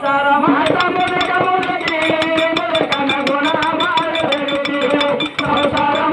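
A man singing a dollin pada folk song in long held, wavering notes, with small hand cymbals and a barrel drum keeping a quick steady beat.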